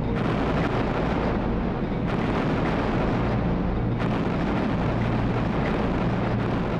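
Heavy naval gunfire and shell explosions merging into a continuous loud rumble, with no single shot standing out. The texture shifts abruptly about two and four seconds in.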